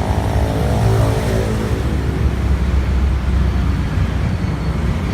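Steady low rumble of background road traffic, with a faint engine hum falling in pitch during the first second or so.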